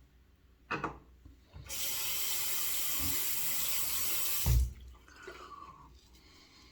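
A bathroom sink tap runs water for about three seconds, then a short knock as the water stops. A brief light sound comes just before the water starts.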